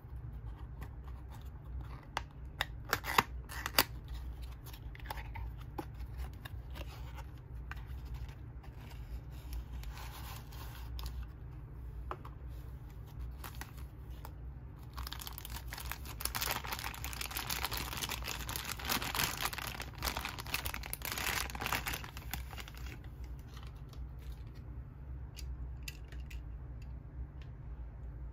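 Handling a toy's packaging: a few sharp clicks and tearing of a cardboard box flap and paper, then a thin plastic bag crinkling for several seconds as a die-cast toy car is unwrapped. A steady low hum runs underneath.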